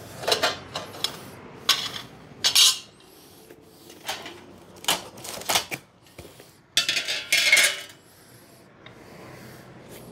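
Steel solar-panel mounting rails and brackets clanking and scraping as they are lifted out of a cardboard box and set down on a concrete floor. It is a series of separate metallic clatters, busiest for about a second around seven seconds in.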